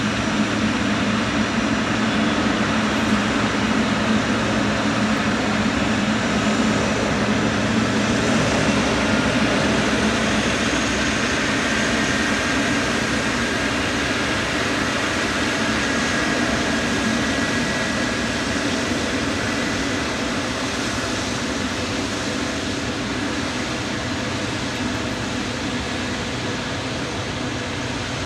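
Boeing 777-300ER's GE90-115B turbofan engines running at taxi power: a steady jet engine rumble with a faint high whine in the middle, slowly growing quieter toward the end.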